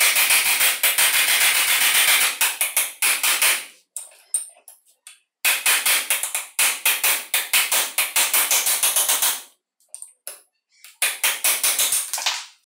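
Rapid metallic hammer strikes on a steel punch, driving a rusted spindle shaft out of a drill's pinion gear held in a bench vise. The blows come in three quick runs with short pauses between them.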